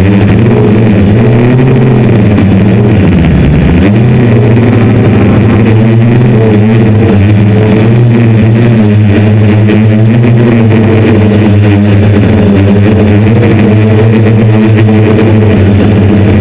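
Hexacopter's six brushless motors and 10-inch propellers buzzing loud and close to the onboard camera in flight. The pitch sags about three seconds in, then climbs back and holds steady as the throttle changes.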